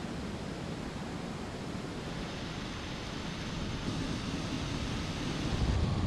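Steady rushing noise picked up inside a Varda Space capsule during atmospheric re-entry. It grows louder from about two seconds in, and louder again near the end as plasma forms outside the window.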